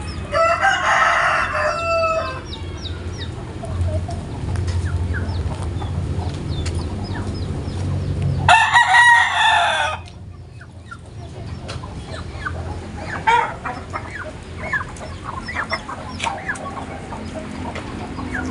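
Free-range village roosters (ayam kampung) crowing twice, once just after the start and again, louder, past the middle, with hens clucking briefly in between and afterwards.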